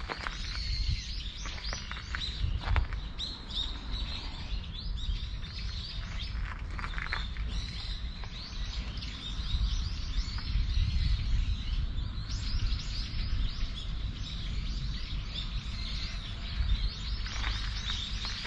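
Small birds chirping and twittering in short, repeated calls, thicker near the start and near the end, over a steady low rumble.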